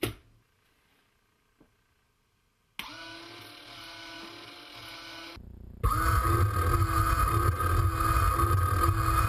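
Small electric wiper motor on a storm-chasing camera dome, sweeping a wiper over the wet acrylic dome. It starts with a steady whine about three seconds in. After a brief break about five seconds in, it comes back much louder, with a low rumble under the whine.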